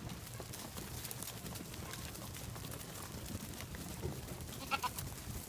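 A goat gives one short bleat near the end, over faint steps and shuffling of a small herd of goats moving on dirt.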